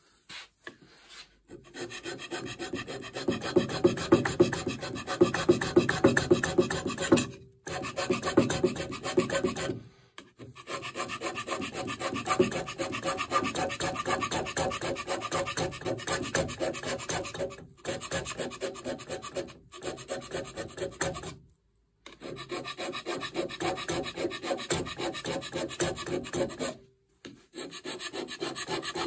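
Hand scraper pushed in quick repeated strokes across the toolpost seat on a Holbrook lathe's topslide, taking metal off the high spots to bring the seat flat and true. The scraping runs in spells with several short pauses between them.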